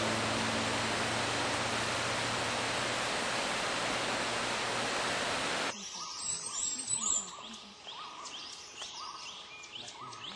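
A loud, steady rushing noise cuts off abruptly a little over halfway through. After it, birds call more quietly: a short note repeated every half second or so, with higher chirps and sweeping notes over it.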